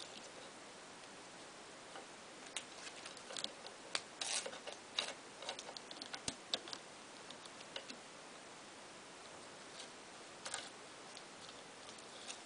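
Chainsaw chain drawn by hand around the nose of a guide bar, its links and cutters clicking and ticking irregularly over the nose sprocket, whose teeth don't match the chain. The clicks come in a busy cluster over the middle few seconds, with a few more later, over a faint steady hiss.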